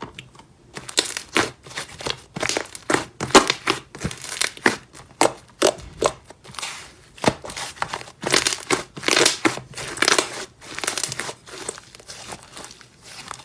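Slime being squeezed and played with by hand: a quick, irregular run of short crinkly, squishy crackles.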